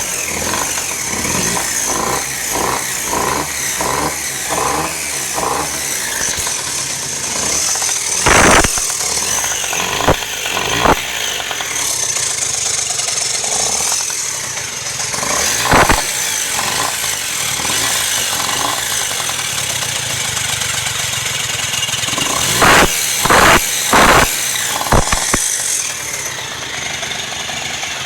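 Engine running with its air filter removed, making a strange noise. Several loud sharp pops stand out over the running sound, one about eight seconds in, two more around ten to eleven seconds, one near sixteen seconds and a cluster of four from about twenty-three seconds on.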